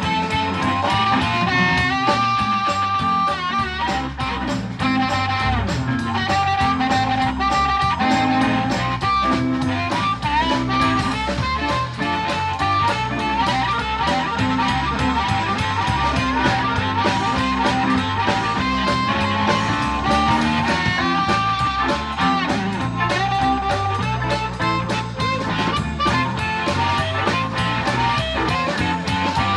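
Live blues band playing an instrumental break with no singing: a lead instrument solos over a steady bass line and drums.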